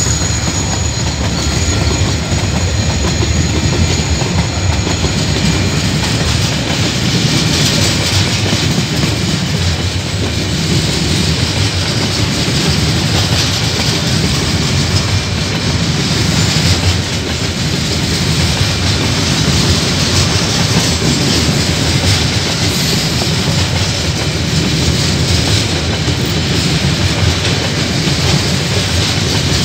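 KiwiRail freight train's loaded container flat wagons rolling past close by: steady, loud noise of steel wheels running on the rails.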